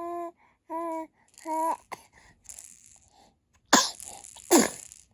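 Three short held 'ah' sounds build up to two sharp, loud sneezes about a second apart near the end.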